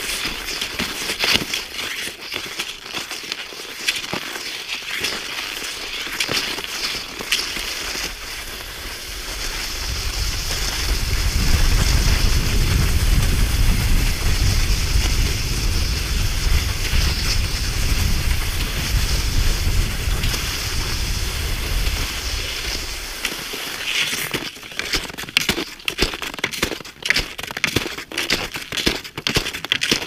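Snow crunching under a hiker's steps, an irregular crackle throughout. A low rumble builds about ten seconds in and dies away about thirteen seconds later.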